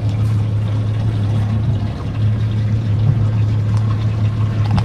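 Boat engine idling: a steady low hum.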